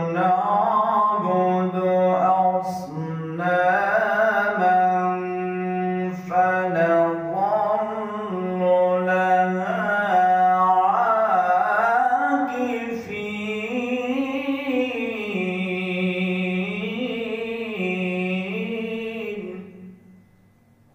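A man's voice reciting the Quran unaccompanied in melodic tajweed style, drawing out long, ornamented phrases with the pitch bending up and down. The recitation stops about a second before the end.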